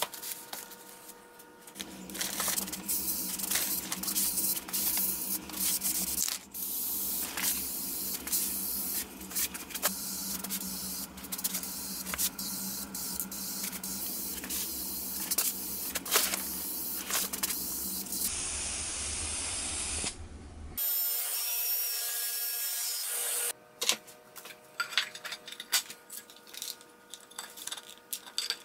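Aerosol can of spray lacquer hissing in repeated bursts over a steady low hum, broken by many short clicks. A few abrupt cuts follow, then light clicking and tapping near the end.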